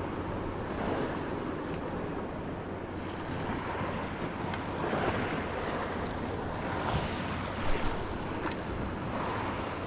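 Sea waves washing with wind buffeting the microphone, swelling and easing, with a couple of light knocks a little before the end.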